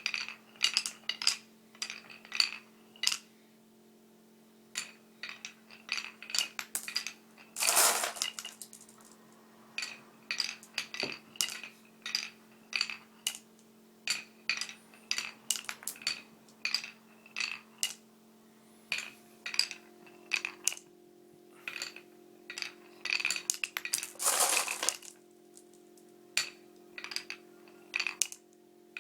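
Marbles clicking and clattering as they run down a marble run: many separate sharp clicks, with longer rattling runs of impacts about eight seconds in and again near 24 seconds. A steady low hum sits underneath.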